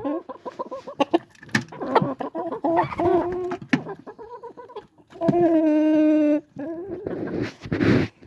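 Chickens clucking, with two long, drawn-out calls of about a second each among the short clucks, and a few sharp clicks in between.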